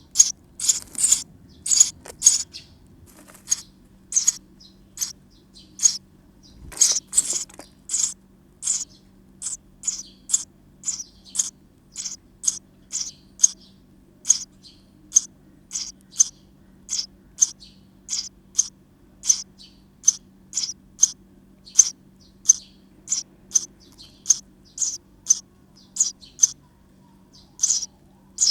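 Sparrow nestlings calling from inside a nest box: a steady run of short, high-pitched cheeps, about two a second, with a brief louder flurry about seven seconds in.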